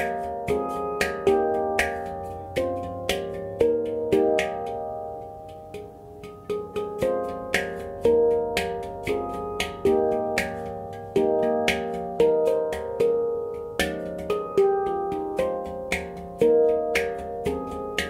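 F minor handpan played by hand: a run of struck notes, several a second, each ringing on and fading, with a brief sparser, quieter stretch about five seconds in.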